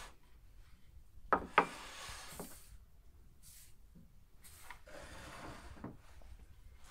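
A hand rubbing and scraping through flour in an enamel basin, with two sharp knocks in quick succession about a second and a half in.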